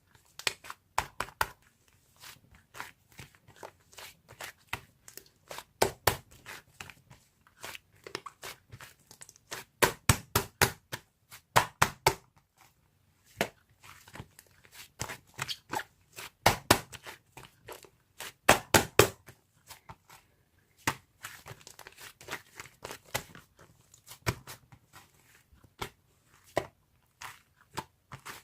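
Irregular crinkling and crackling, like something being crumpled and handled, in clusters of sharp crackles with short pauses between.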